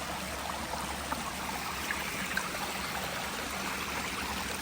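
A creek flowing over rocks, a steady rushing and trickling of water, with a few faint ticks over it.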